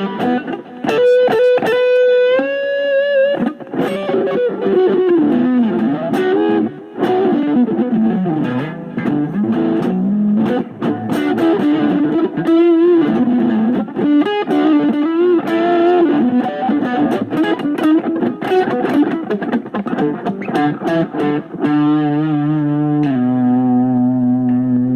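Electric guitar through distortion and effects playing a lead line with bent, wavering notes, settling on a steady held chord about 22 seconds in.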